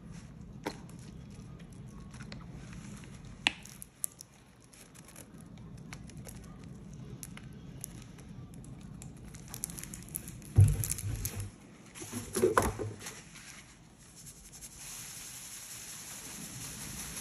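Wet cleaning paste and foam crackling and fizzing in a bowl as paste is squeezed and a thin stream of liquid is poured over a soap bar, with scattered small clicks. A few loud bumps come about two-thirds of the way through, and near the end a steady hiss sets in as powder is sprinkled on.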